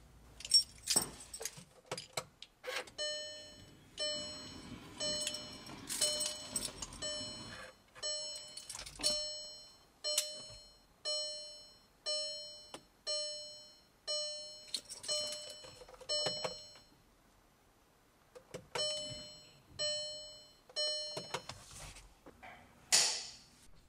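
A Volkswagen Golf R's dashboard warning chime dings about once a second, with each ding fading away. It stops for about two seconds and then starts again as the ignition is switched on, off and on to prime the fuel pump. There are a few clicks at the start and a short rush of noise near the end.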